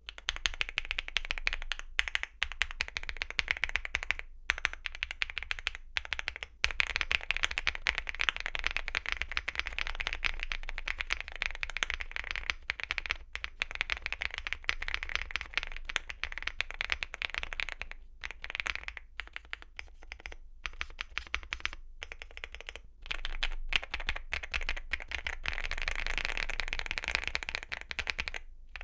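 Typing on a Weikav Lucky65 (Sugar65 V2) mechanical keyboard with Gateron Smoothie Silver linear switches and Cherry-profile PBT keycaps: a continuous stream of keystroke clacks with a few brief pauses, getting denser near the end.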